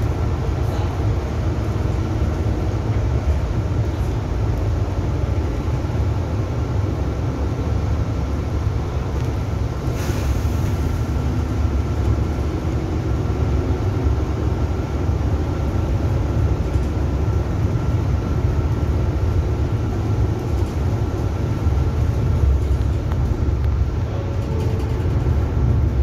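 Inside a city bus under way: steady engine and road rumble, with a faint steady high tone throughout. A brief hiss comes about ten seconds in.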